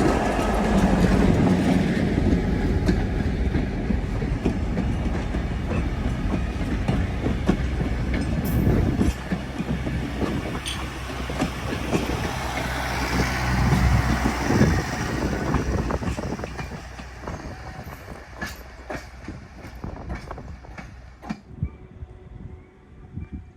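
Diesel-hauled passenger train rolling past, with a low engine rumble and wheels clacking over rail joints. The sound fades over the last several seconds to a few separate clicks.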